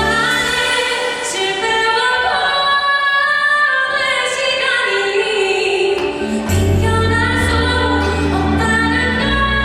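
Live music: a female vocalist sings long, held notes without clear words over instrumental backing, and a deep bass comes in about six and a half seconds in.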